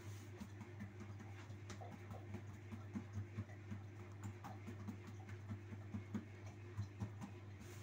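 Hands patting and pressing pizza dough flat on a floured countertop: soft, dull, irregular pats a few times a second, over a steady low hum.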